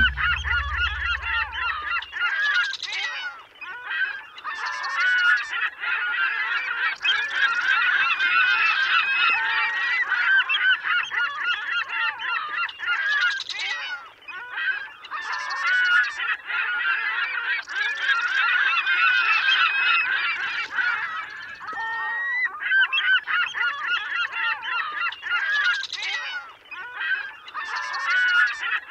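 A flock of birds calling continuously in a dense chatter of many overlapping short calls, with louder calls standing out every second or two.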